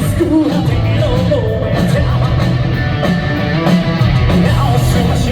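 Live J-rock band playing loudly over the hall's sound system: electric guitars, bass and drums, with a singer's voice over them.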